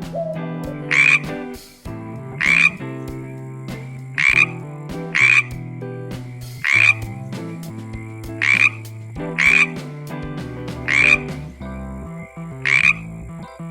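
A frog croaking repeatedly, nine short calls about one to two seconds apart, over light background music.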